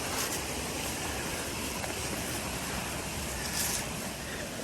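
Mountain creek running over rocks: a steady rush of flowing water.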